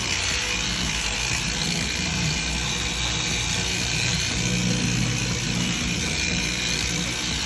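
Handheld power tool running steadily, a constant rushing noise with a thin high whine, as in machine sanding or polishing of gel coat.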